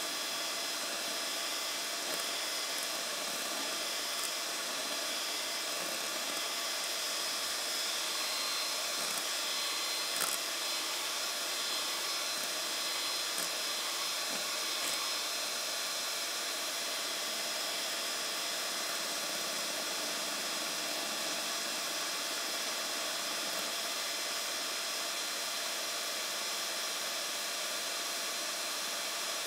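Electric hand mixer running steadily with its beaters in a stainless steel bowl, whipping cream towards peaks: an even whir with a steady high whine.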